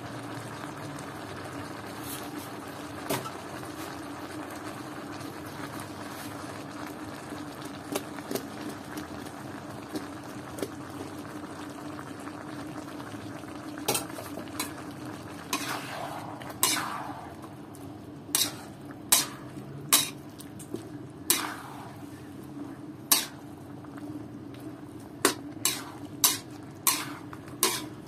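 Chinese kale and canned fish in tomato sauce simmering and sizzling steadily in an aluminium wok. From about halfway, a metal spatula stirs the food and knocks against the wok, roughly once a second.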